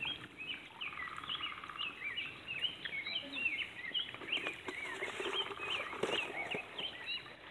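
Many small birds chirping all through, short rising and falling notes several a second, with a brief buzzy trill about a second in.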